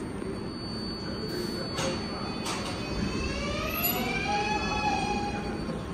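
R188 subway train pulling out of the station: the traction motors give a rising whine from about three seconds in that then levels off, over a steady rumble. A few brief clicks come shortly before the whine starts.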